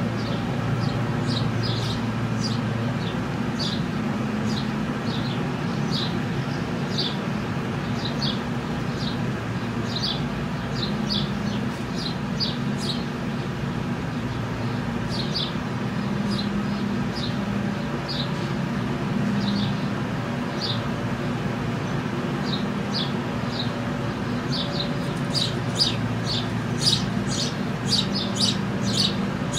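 Electric bouncy-castle blower running steadily as it inflates the castle, with small birds chirping over it; the chirps come thicker and louder near the end.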